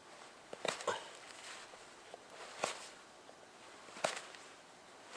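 Knife whittling the end of a wooden stick to a taper: about four short, sharp scraping cuts, unevenly spaced.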